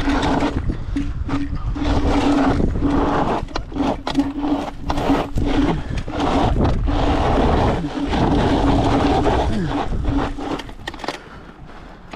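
Electric scooter ridden hard over off-road dirt mounds: a steady motor hum that keeps cutting in and out with the throttle, under rough wind and tyre noise and sharp knocks from the bumps. It eases off about eleven seconds in.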